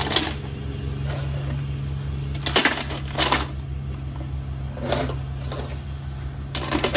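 Live mud crabs' shells and legs clicking and knocking on a perforated aluminium steamer tray as they are set in, a handful of sharp knocks spread a second or so apart, over a steady low hum.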